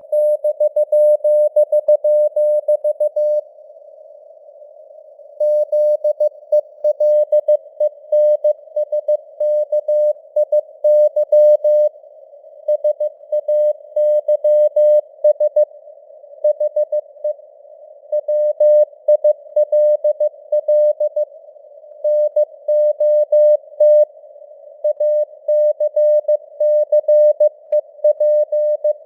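Morse code (CW) sent at 15 words per minute: a steady mid-pitched beep keyed on and off in dots and dashes, over a thin band of simulated radio hiss, with the signal strength fading up and down (QSB). A longer break falls a few seconds in, between words.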